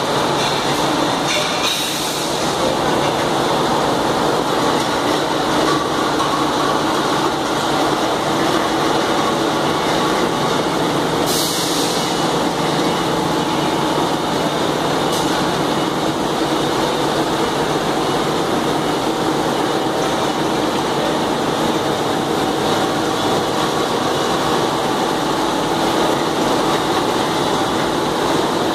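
Juice filling line running: conveyor and filling machinery giving a steady, dense mechanical noise with a few faint steady tones, and a sharper knock about two seconds in and again around eleven seconds.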